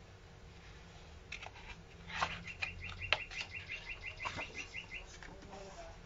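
A small bird chirping a quick run of short, evenly spaced high notes, about five a second, for a couple of seconds. Faint paper rustles of a book page being turned come in around it.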